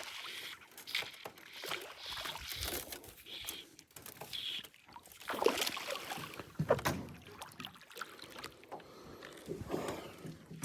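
Irregular water splashing and knocking around a small boat while a small bass hooked on a fly rod is fought and brought in.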